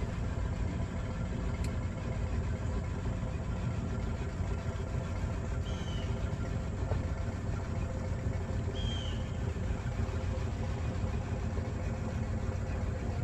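Boat motor running steadily at low speed, a low even hum. There are two brief high chirps near the middle.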